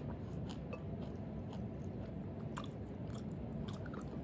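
Close-up chewing of a rolled jianbing, with scattered small crunchy clicks over a low steady hum.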